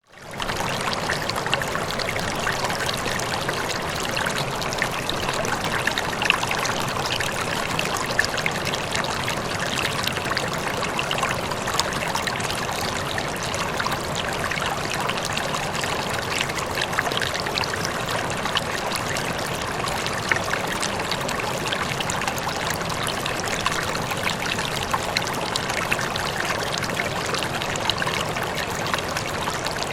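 Running water flowing steadily, like a stream, with many small splashes and trickles. The sound fades out and back in for a moment at the very start.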